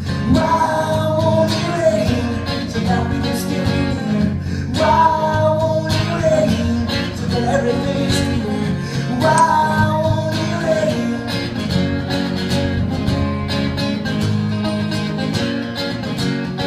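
Acoustic guitar strummed steadily while a man sings three long held phrases over it; after about eleven seconds the voice stops and the guitar plays on alone.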